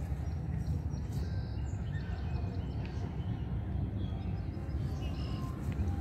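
Steady low rumble of wind on the microphone, with scattered short bird chirps over it.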